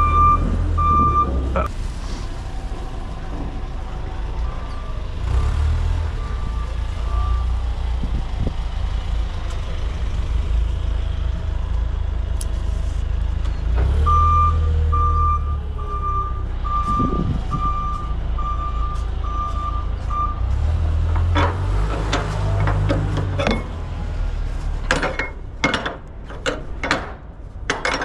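Forklift's reversing alarm beeping in spells, about one and a half beeps a second, over the low drone of its engine, which swells at times as it moves. Near the end, a run of sharp knocks and clinks.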